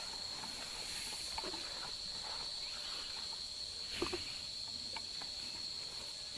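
Insects chirring steadily at one high pitch, with a few faint knocks about a second and a half, four and five seconds in.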